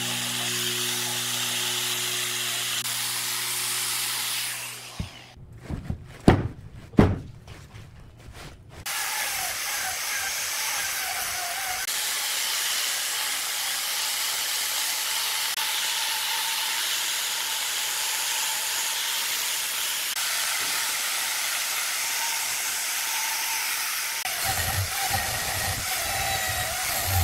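Angle grinder with a carving disc grinding into wood, a steady hiss. About five seconds in it stops for a few seconds, and two sharp knocks come in the gap before the grinding starts again.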